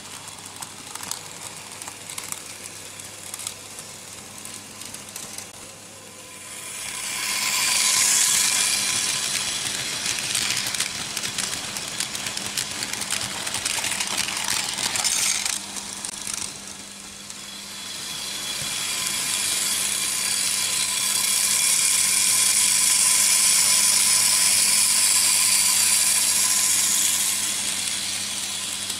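Märklin H0 model trains running on metal M-track, the wheels clicking and clattering over the rail joints. The rolling noise grows loud as a train passes close about seven seconds in, and again from about eighteen seconds in, over a steady low hum.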